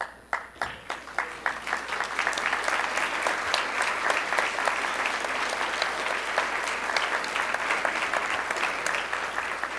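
Audience applauding: a few separate claps at first, building within about two seconds into full, steady applause.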